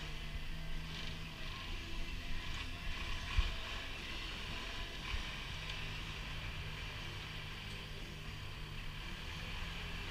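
Telehandler engine running steadily below, a low hum, with wind on the microphone. A single sharp knock comes about three and a half seconds in.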